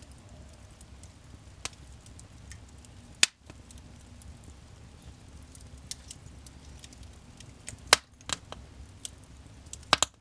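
Wood fire burning in a fireplace: a low steady rush of flame with scattered small crackles and three loud, sharp pops, the last a quick double near the end.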